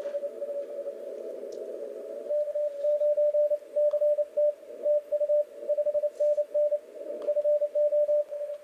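Morse code (CW) signal received on an Icom IC-7300 HF transceiver: a single-pitched tone keyed in dots and dashes over the receiver's narrow band hiss. The keying becomes crisp and regular about two seconds in.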